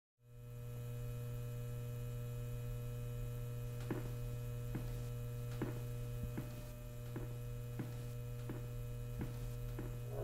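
Steady electrical mains hum, fading in just after the start. From about four seconds in it is joined by footsteps on a tiled floor, about three every two seconds.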